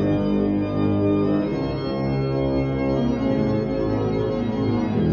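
Background organ music: slow, sustained chords that change about once a second.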